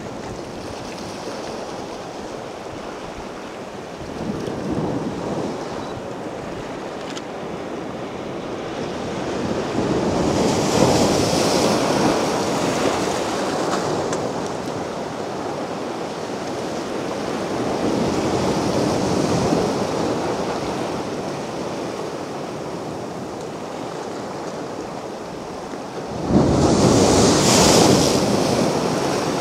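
Sea waves breaking on a beach: a steady wash of surf that swells and fades every several seconds, with the loudest wave breaking suddenly near the end.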